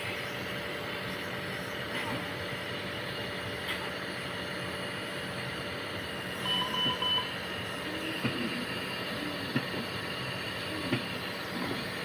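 Steady hum of neonatal intensive-care equipment, with a short run of electronic beeps from a monitor about halfway through.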